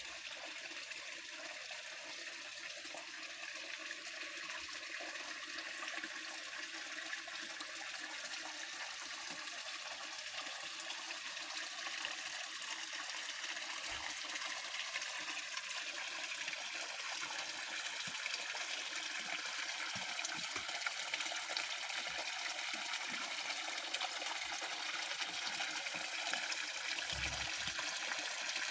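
Small garden-pond waterfall: water spilling steadily over rocks into the pond, a continuous splashing trickle that grows gradually louder.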